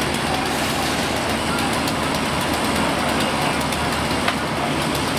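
Steady, loud drone of a running engine of fire equipment, with a constant rushing hiss over it; a single sharp click about four seconds in.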